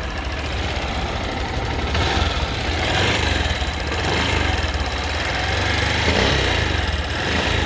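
Honda XRE 190 single-cylinder engine running, its speed rising and falling a few times, with a few short high ticks. The ticks are the kind of intermittent noise the owner hears when the engine is revved hard and cannot identify.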